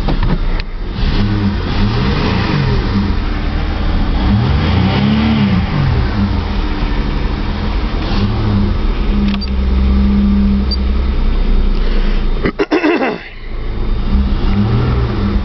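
A 1997 Holden VS Commodore's 3.8-litre V6 revving up and falling back several times, its pitch rising and dropping in smooth swells. A brief sharp knock comes just before the last swell.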